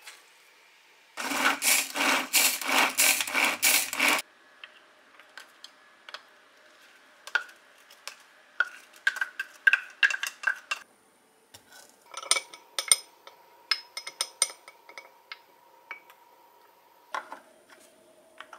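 Kitchen food preparation. About three seconds of fast, loud rasping strokes come first. Then a wooden spoon scrapes chopped potato out of a plastic chopper bowl, and light clicks and knocks follow as ingredients go into a glass chopper jar.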